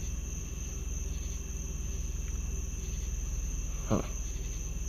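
Crickets chirping steadily in a high, unbroken drone over a low, steady rumble. A short voiced 'huh' comes near the end.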